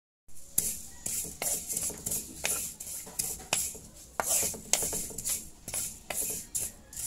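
Sesame seeds being dry-toasted in a pan and stirred with a wooden spatula: repeated scraping strokes, about two a second, each with the hiss and rattle of the seeds sliding over the metal.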